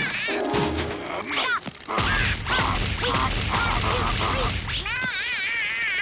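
Cartoon sound effects of a wooden club whacking a whack-a-mole game machine in a rapid series of hits, over music, with warbling squeaky calls in between.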